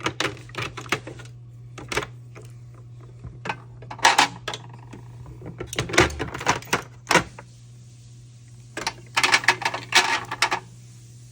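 Small plastic lip-product tubes and cases clicking and clattering as they are set into a mini tool box drawer, in short clusters of sharp knocks with pauses between.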